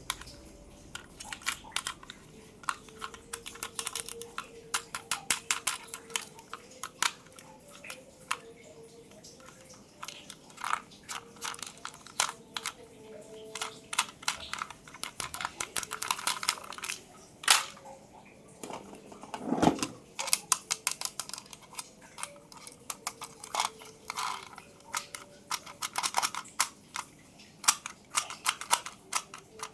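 Toy packaging being handled and opened: rapid, irregular crackles, clicks and taps. There is one louder thump about twenty seconds in.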